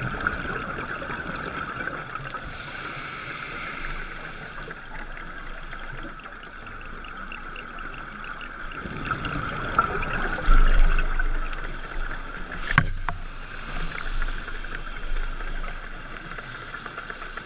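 Scuba diver breathing through a regulator, heard through a GoPro Hero 3's underwater housing: a steady hiss with two spells of rushing, rumbling exhaust bubbles, and a single sharp knock about thirteen seconds in.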